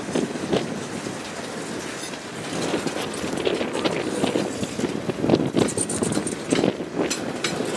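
Freight cars of a passing train, a tank car then boxcars, rolling by with a steady rumble. Their steel wheels click and clank irregularly over the rail joints.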